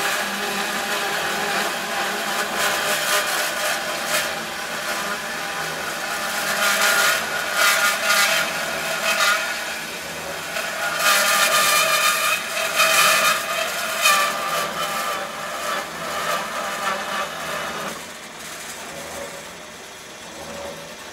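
Band saw running and cutting through a metal pole, the blade noise swelling louder in stretches through the middle of the cut. Near the end the sound drops and fades away.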